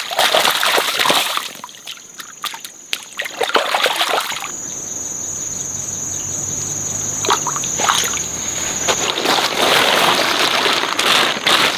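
Water splashing and sloshing in uneven bursts, with a steadier stretch of running water in the middle that carries a thin, high, steady tone.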